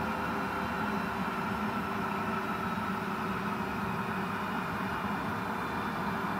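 Cessna 525 CitationJet's twin Williams FJ44 turbofan engines running steadily at ground idle: an even jet noise with a few whining tones that hold their pitch.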